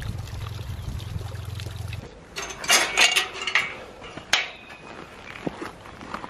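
Water trickling in a small stream for about two seconds, then crunching footsteps on a stony path with a few sharp clicks.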